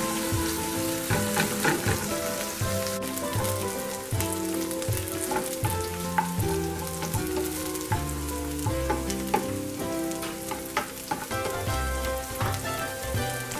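Sliced onions sizzling as they fry in olive oil, on their way to light brown, with a spatula stirring and scraping against the pan in quick ticks and scrapes. Background music with a melody plays underneath.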